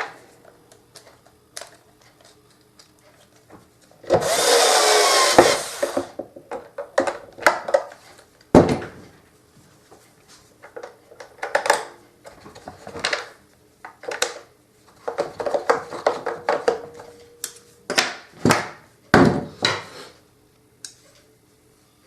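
An electric screwdriver whirs for about a second and a half, driving in a screw, followed by scattered light clicks and knocks of plastic parts and screws being handled.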